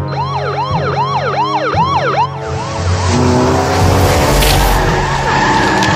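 Cartoon police sirens wailing in a quick repeating rise and fall, about three cycles a second. They stop about two and a half seconds in, and a vehicle's rocket-boosted engine takes over with a dense rush that climbs slowly in pitch.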